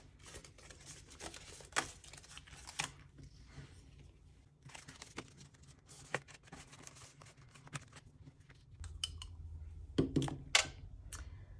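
Rustling and crinkling of plastic banknotes and a clear plastic binder pocket as cash is tucked away, with scattered light clicks and taps; a few louder taps come near the end.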